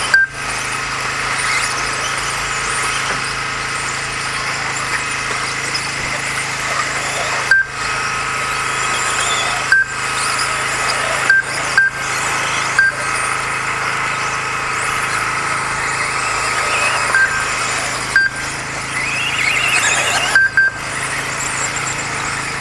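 Radio-controlled 2WD off-road buggies racing around a track, their motors whining up and down as they accelerate and brake. The sound cuts out briefly several times.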